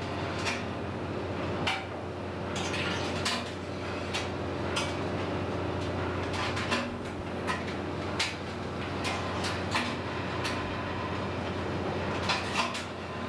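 Irregular sharp metallic clinks and clanks of steel longline hooks and gear being handled against metal, over the steady low hum of the fishing boat's machinery.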